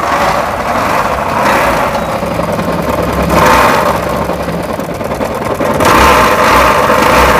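An engine running loudly and revving up in swells, about three times.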